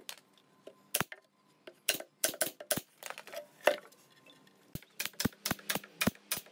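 Pneumatic nail gun firing into a pine drawer box: a quick run of about six shots, roughly four a second, near the end. Before it come scattered sharp knocks and clicks of the wood being handled, the loudest a little before halfway.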